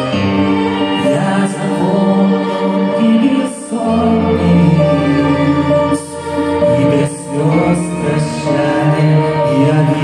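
Live rock band playing a slow song: lead vocals over bowed cellos and keyboards, heard from the audience in a concert hall.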